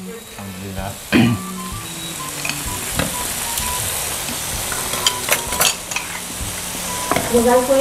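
Marinated mutton and chicken sizzling steadily on a tabletop grill pan, with a few sharp clinks of a ladle and bowls, three of them in the middle of the sizzling.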